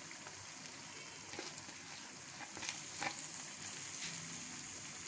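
Raw beef mince sizzling as it drops into hot cooking oil with lightly sautéed onions in a frying pan: a steady hiss with a few faint ticks.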